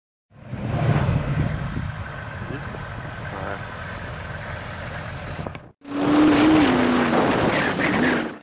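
Hummer engine running as a steady low rumble. After a short break it turns into a louder passage of a Hummer driving on a dirt track: engine and tyre noise with a whine that steps up and down in pitch.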